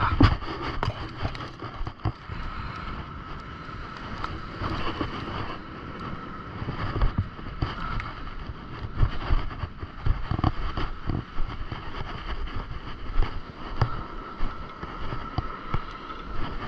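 Wind buffeting the microphone on an open beach, a steady rushing hiss broken by irregular low thumps.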